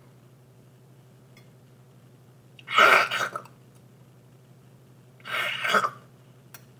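A boy makes two short throaty vocal sounds with his mouth full while eating from a spoon, about three and five seconds in. A faint steady low hum runs underneath.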